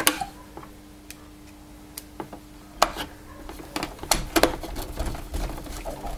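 Irregular small clicks and light knocks of a screwdriver and plastic parts being handled on an opened Dyson DC04 vacuum cleaner, likely as the clutch cover's Torx screws are done up, with a cluster of clicks a little past the middle. A faint steady hum runs under the first half.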